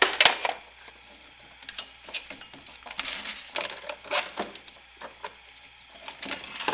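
Serpentine accessory drive belt being worked off the engine's pulleys by hand: scattered clicks, knocks and rubbing, with the loudest cluster right at the start.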